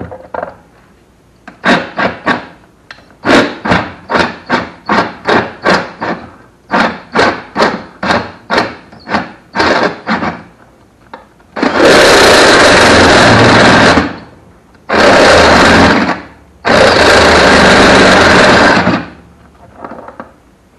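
Cordless drill with a step bit enlarging a hole in a Wheel Horse garden tractor's metal dash panel. First comes a string of short trigger pulses, two or three a second; from about twelve seconds in come three longer, steady runs of drilling, the loudest part.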